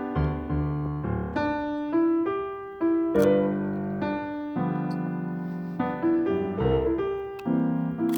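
Background jazz piano music: chords and melody notes struck at an easy, unhurried pace.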